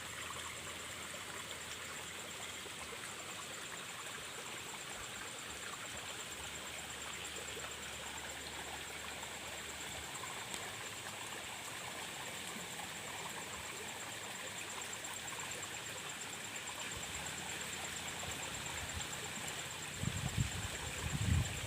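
Steady rush of flowing water, even and unbroken, with a faint high steady hum above it. A few low bumps come in near the end.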